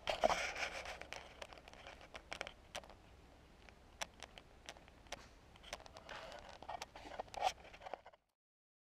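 Faint handling noise from a hand-held camera being moved: irregular clicks and taps over a soft rustle. It cuts off abruptly about eight seconds in.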